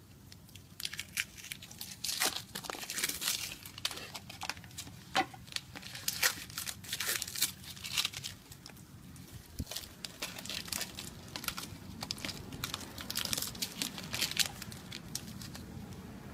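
Adhesive tape being peeled off a sculpture in many short, irregular rips.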